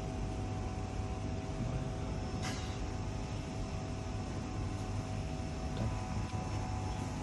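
Steady mechanical hum with a few faint steady tones, and a single sharp click about two and a half seconds in.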